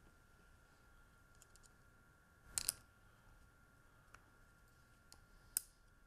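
Light metallic clicks of a snap ring being fitted over a spacer onto a camshaft with snap ring pliers: a quick double click about two and a half seconds in, a faint click near four seconds, and another sharp click near the end.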